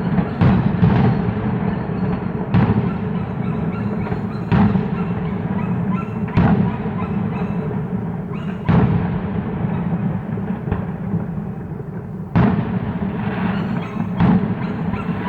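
Fireworks bursting: a series of deep booms at uneven gaps of one to four seconds, each sharp at the start and then dying away, over a continuous low rumble.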